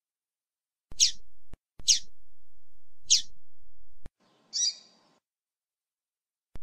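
Female double-collared seedeater (coleiro) calling: three short high notes that slide down in pitch, about a second apart, then a different, fuller note a little past the middle. Sharp clicks fall between the calls where the recording is cut.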